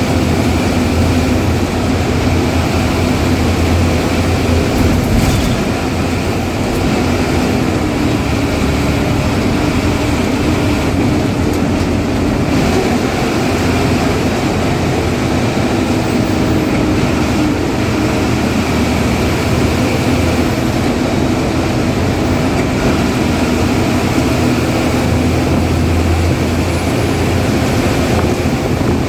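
Ashok Leyland bus diesel engine running under way, with heavy road rumble; its pitch shifts a little as the load changes.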